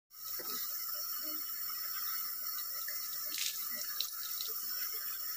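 Water tap running steadily into a bathroom sink, with small splashes as a face is washed under it.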